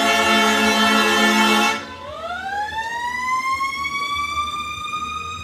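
A fire engine's air horn sounds a steady multi-note chord and cuts off abruptly about two seconds in. A siren then starts winding up, its pitch rising and levelling off.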